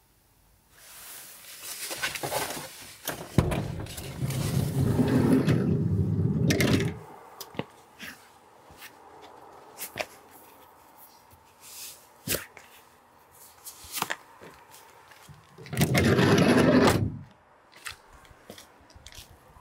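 A Renault Kangoo's sliding side door rolling open on its track with a long scrape, after a knock. Scattered knocks and footsteps follow as someone climbs out, then the door rolls shut with a shorter scrape near the end.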